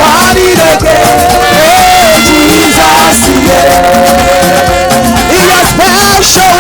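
Live gospel praise music: a singer holding long notes over a band with a steady drum and bass beat.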